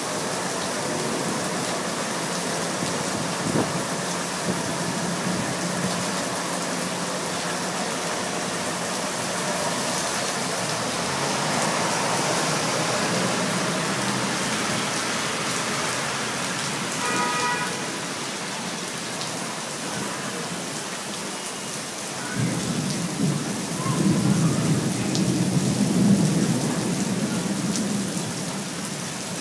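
Heavy rain pours onto a flooded street and pavement with a steady hiss. A low rumble of thunder swells about 23 seconds in and fades near the end.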